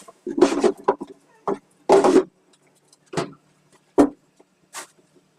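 Food preparation noises: about seven short, separate knocks and rustles over a few seconds, with quiet gaps between them.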